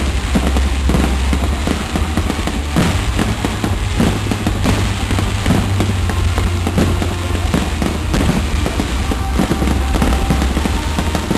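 Fireworks display going off: a dense run of bangs and crackles following close on one another, over a continuous low rumble.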